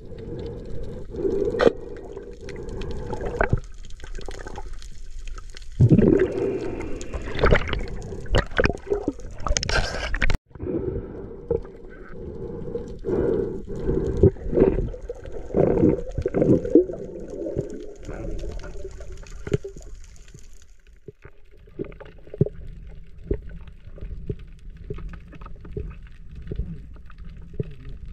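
Muffled underwater sound of a camera under the sea: water sloshing and gurgling, with scattered knocks and surges and a sudden break about ten seconds in.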